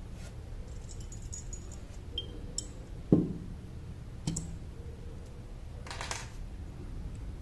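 Small clicks and knocks of a perfume box and glass bottle being handled during unboxing. There is one sharp knock about three seconds in, a lighter one a second later, and a short swish near the end.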